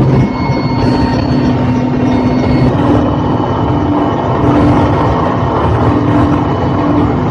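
A heavy engine running steadily amid loud, even noise, with a low hum that comes and goes.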